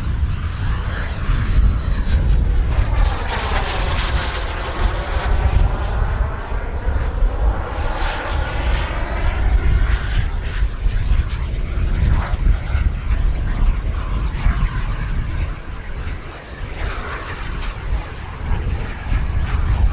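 Twin model jet turbines of a radio-controlled A-10 Warthog running in flight, with a sweeping, whooshing change in tone as the jet passes between about three and nine seconds in.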